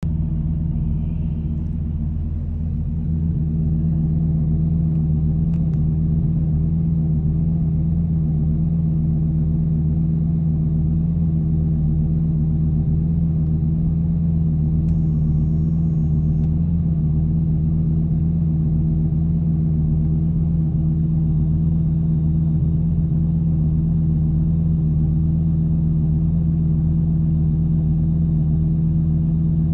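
Lamborghini Gallardo's V10 engine running steadily at idle, a constant hum with a strong steady tone, a little louder after about three seconds; the owner finds the sound strange.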